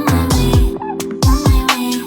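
Electronic background music with a heavy beat: deep bass drum hits that drop in pitch, about every half second or so, under sustained synth notes and hi-hat strokes.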